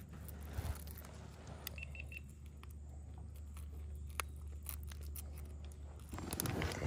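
Three short high beeps from a GoPro acknowledging the voice command to stop recording. Around them are light clicks and handling sounds of hands unhooking a bass, over a low steady hum, with louder rustling near the end.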